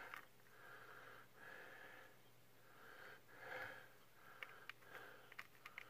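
Faint breathing through the nose, a soft breath about every second, from a man straining to open a child-resistant press-and-turn bottle cap. A few small, faint clicks come in the second half.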